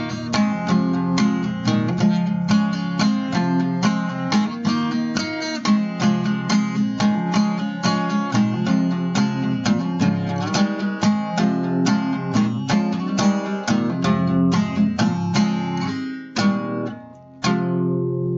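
Song's instrumental ending: a guitar strumming chords in a steady rhythm, breaking off briefly near the end before one last chord rings out and fades.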